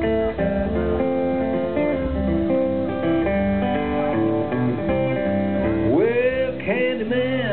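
Fingerpicked acoustic guitar playing a blues tune through a PA. About six seconds in, a voice joins with notes that slide up in pitch.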